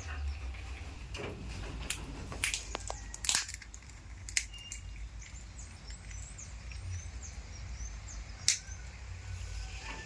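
A few sharp, separate cracks and clicks, the loudest a third of the way in and another near the end, over faint high chirps of small birds and a low rumble.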